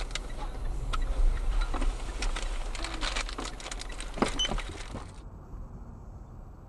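Car cabin road noise recorded by a dashcam: a steady low rumble with many scattered clicks and knocks. About five seconds in it changes abruptly to a quieter, duller steady drone.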